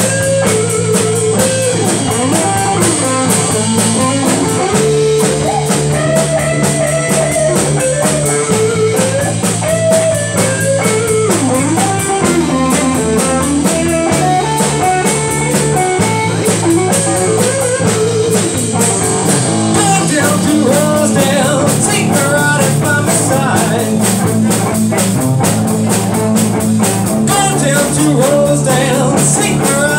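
Live blues-rock band playing: an electric guitar lead line with bent notes over a repeating chord pattern and a drum kit. The lead moves higher about twenty seconds in.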